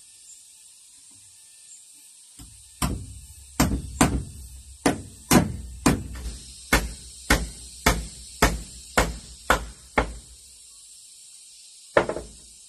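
Hammer nailing into a wooden board: about a dozen sharp blows, roughly two a second, then a pause and one more blow near the end.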